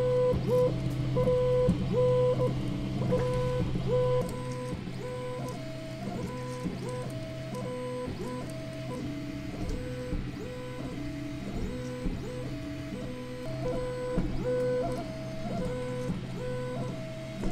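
Tronxy X5SA 3D printer printing: its stepper motors whine in steady tones that jump between pitches every fraction of a second as the print head changes moves. A low hum underlies the first four seconds, then stops.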